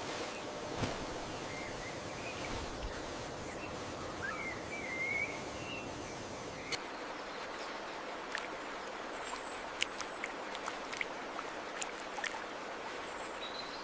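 Outdoor nature ambience: a steady rushing hiss like running water, with a few short bird chirps in the first few seconds and scattered sharp ticks later on.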